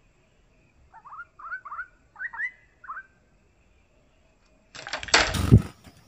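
Stripe-throated bulbul giving a quick phrase of about six short, clear whistled notes. Near the end comes a louder burst of rustling and clattering, about a second long, with a dull thump in it.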